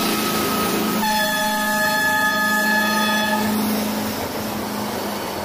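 Passenger coaches of a diesel-hauled train rolling past on the rails, with a train horn sounding a steady blast of about two and a half seconds starting about a second in.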